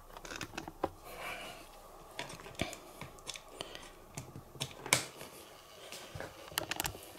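Scattered light clicks and knocks of hands handling a plastic light-up display turntable base, with one sharper click about five seconds in as its light is switched on.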